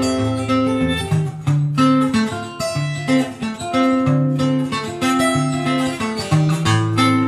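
Steel-string acoustic guitar played solo fingerstyle in a country picking style: low bass notes switching back and forth under a plucked melody on the higher strings.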